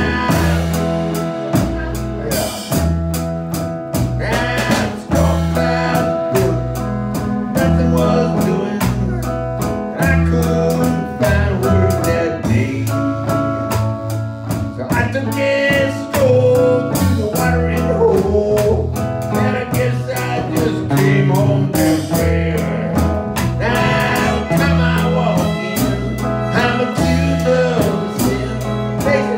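Live country-blues band playing: archtop acoustic guitar, fiddle, upright double bass and drum kit, with vocals over a steady bass line.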